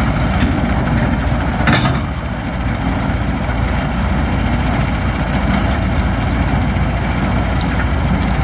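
Kubota ZT155 two-wheel tractor's single-cylinder diesel engine idling steadily, with a brief metallic clank about two seconds in as the steel grate ramp is handled.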